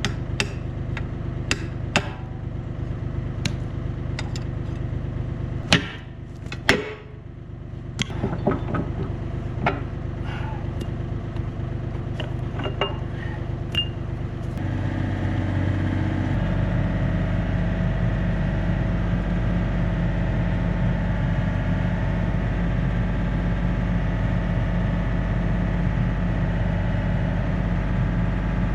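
Small excavator's diesel engine running steadily, with a string of sharp knocks and clanks over the first half. About halfway through the engine speeds up in two steps and holds at the higher speed.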